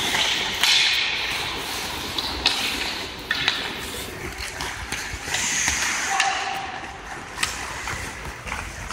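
Ice hockey play: skates scraping and carving on the ice, with a few sharp clacks of sticks striking the puck.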